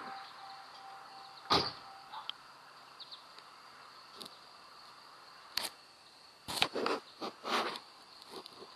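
Pickup truck's driver door slammed shut once, about a second and a half in, followed a few seconds later by a scatter of short clicks and knocks from inside the cab.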